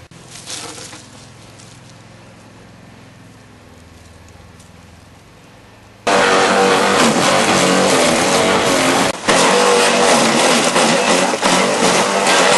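A garden shredder starts loud and sudden about six seconds in and runs on, chewing up branches, with a brief dip about three seconds later.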